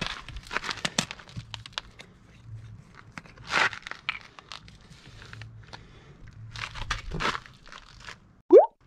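Handling noises from opening a plastic bottle of motor oil: scattered clicks, knocks and crinkling. Near the end comes a short, loud rising squeak.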